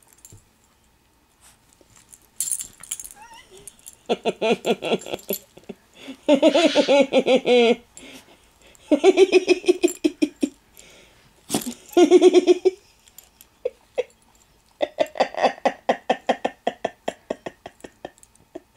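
A woman laughing in about five fits of quick, pulsed laughter with short pauses between them.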